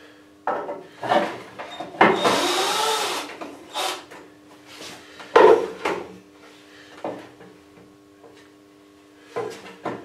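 Wooden roof boards of a birdhouse being handled and fitted: a series of wooden knocks and clunks, with a longer scraping rub of wood on wood about two seconds in lasting about a second.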